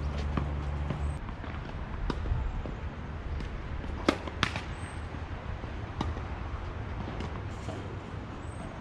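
Tennis ball hit with rackets during a rally: scattered sharp pops, the loudest two in quick succession about four seconds in, over steady outdoor background noise.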